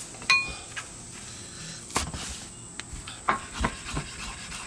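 Kitchen knife cutting fresh parsley on a wooden cutting board: one ringing metallic clink early on, then a run of short, sharp chops of the blade on the wood from about two seconds in.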